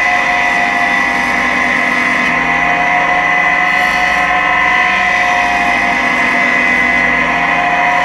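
Electric sanding machine running steadily with a constant whine, as a graphite tool is sanded against its pad.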